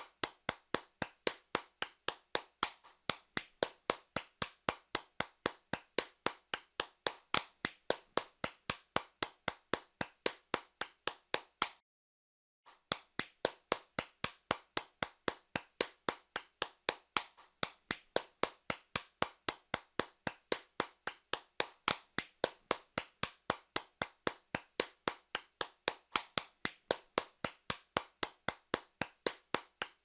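One person's hands clapping at a steady, even pace, about three claps a second. The clapping stops for about a second of silence a little before halfway, then goes on at the same pace.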